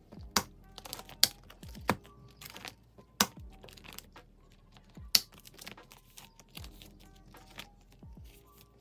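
Clear plastic binder sleeve pages crinkling and rustling as they are turned and photocards are slid in and out of the pockets, with several sharp clicks and taps, the loudest a little over a second, about three seconds, and about five seconds in.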